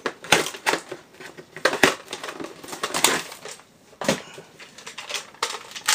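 Packaging being cut open to free a new toy blaster from its retail box: an irregular run of sharp clicks, snaps and crinkles, with a brief lull a little past the middle.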